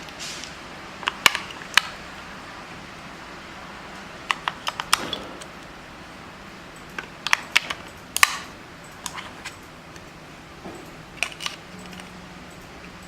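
Scattered sharp clicks and clacks in small clusters: AA batteries being fitted into the battery compartment of an LED video light.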